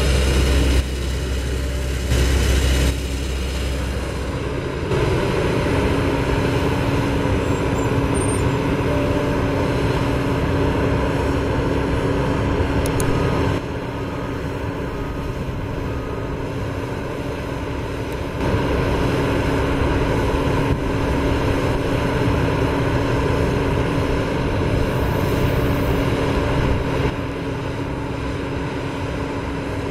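JCB JS210 NLC tracked excavator's diesel engine working under load while it digs, a continuous drone with heavy low thumps in the first few seconds and a steady hum joining about six seconds in.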